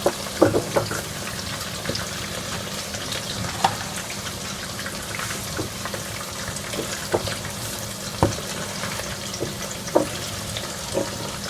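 Burger buns toasting in butter on a hot tawa: a steady sizzle with scattered crackles and a few sharper clicks.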